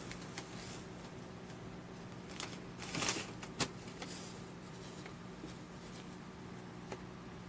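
A brief crinkling rustle of a paper bag about 3 seconds in, as a cat pulls its head free of it, with a few faint taps and scuffs before and after over a low steady hum.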